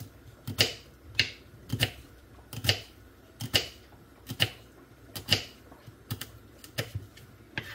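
Knife slicing spiny gourd (kantola) on a wooden cutting board, a sharp tap each time the blade goes through onto the board, about one cut a second.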